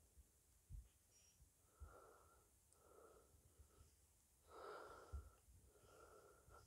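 Near silence, with four faint, soft, half-second sounds spread through it and a few faint low thuds.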